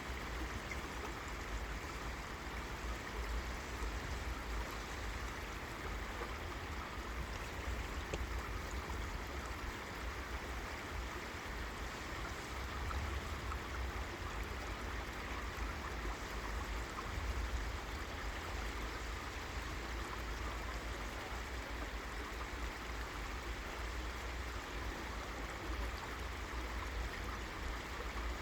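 River water running over rocks with a steady, even rush and a low rumble underneath.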